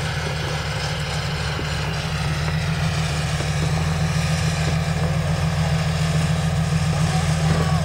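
Jeep Wrangler TJ engine running at low, steady revs as the Jeep crawls along a steep off-camber slope. The engine gets gradually a little louder over the last few seconds.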